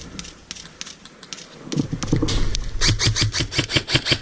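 Airsoft replica firing: scattered single shots, then a rapid burst of about eight shots a second near the end, with some low knocks underneath.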